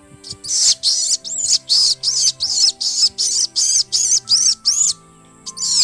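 A person vocally imitating the call of a common myna: a fast run of short, high chirping notes, about four a second, with a brief pause near the end before they start again. Background music plays underneath.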